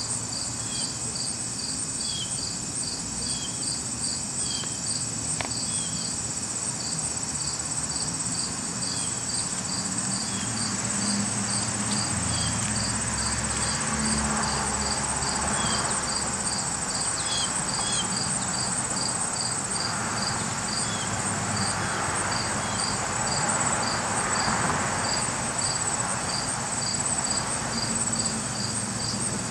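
Late-summer insects calling: a steady high-pitched drone with a regular chirp about twice a second, typical of crickets. A soft rushing sound swells up in the middle and fades again.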